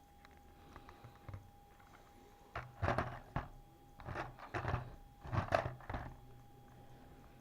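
Three short bursts of clicks and knocks from handling a small plastic drone, over a faint steady high whine.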